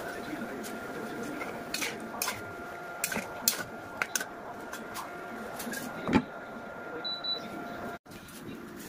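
Metal spatula clinking and scraping against a metal kadai as simmering legumes are stirred, a few sharp clinks over a steady hiss and a faint steady whine. A louder clank about six seconds in.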